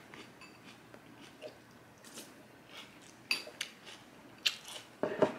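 Close-up eating sounds: a scatter of soft crunches and mouth clicks as food is chewed, a little louder near the end.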